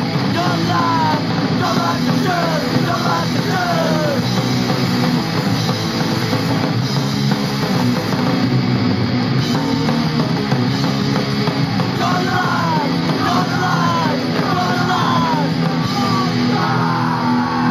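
A street punk song played from a 7-inch vinyl single on a Technics SL-J11 linear-tracking turntable: full band with guitars, with vocals in the first few seconds and again from about twelve seconds in, and an instrumental stretch between.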